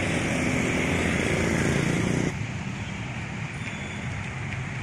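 Road traffic on a flooded street: motor scooters pass with their engines running, then after a sudden cut about two seconds in, a motorcycle and a car drive through shallow floodwater, a quieter steady wash of engine and water noise.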